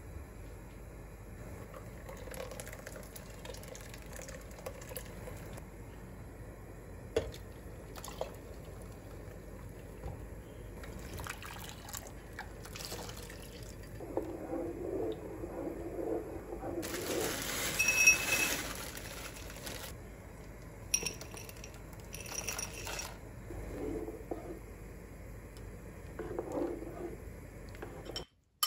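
Rice and yogurt soup being stirred in a pot with a wooden spoon: liquid sloshing and stirring, loudest about halfway through, with a few sharp utensil clinks earlier, over a steady low hum.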